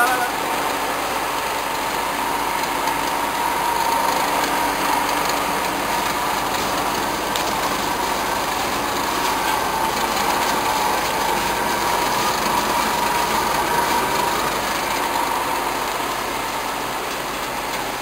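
Plastic film washing line running: motors, conveyors and a washing tank churning water and film flakes, a steady machine noise with a faint high whine running through it.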